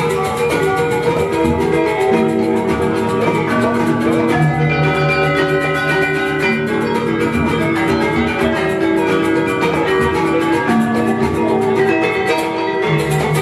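Balinese gamelan selonding ensemble playing: iron-keyed metallophones struck with mallets in a fast, steady pulse, their ringing tones overlapping and sustaining into one another.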